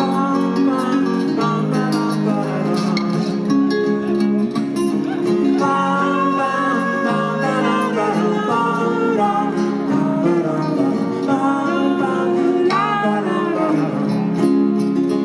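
Live band playing an instrumental break in a folk-rock song, led by acoustic guitar and other plucked strings, with some sliding notes.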